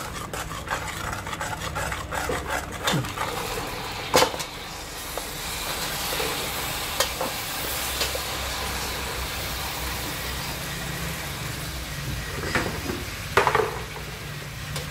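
A ladle scraping and clicking against an aluminium pot as caramelised brown-sugar sauce is stirred, with a loud knock about four seconds in. Then a steady sizzle as pieces of snakehead fish head cook in the hot sauce, with a few more knocks on the pot near the end.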